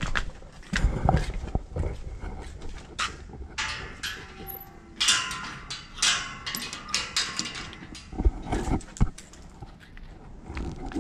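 Footsteps on a concrete path, and from about four to eight seconds in a run of metal clinks and rattles as a sheet-metal gate's latch and padlock are worked by hand.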